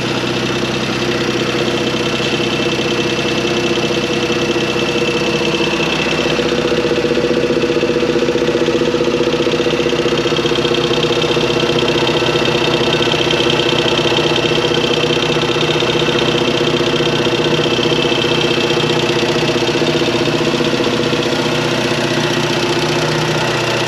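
Suzuki Cappuccino's 657 cc turbocharged F6A three-cylinder engine idling steadily, running smoothly after new charge piping and intake were fitted.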